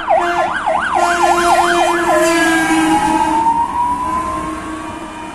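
Fire engine on an emergency run driving past with its siren on: a fast up-and-down siren, about three sweeps a second, switches about two seconds in to a slow rising wail. It is loudest about a second and a half in, then fades as the truck moves away.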